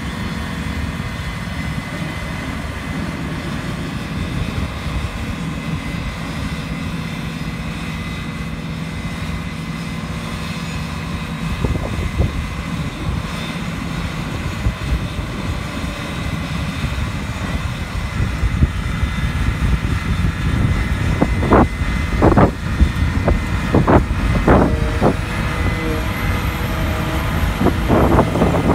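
Massey Ferguson 7720S tractor working a JF FCT1050 trailed forage harvester, engine and forager running steadily and growing louder as the outfit comes closer. Several sharp knocks sound over the last few seconds.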